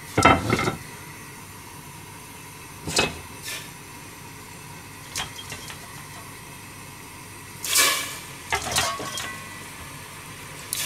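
A few short knocks and clatters of kitchen pots and utensils. About three-quarters of the way through comes a cluster of sounds as pieces of beef tendon are dropped into a stainless pot of broth.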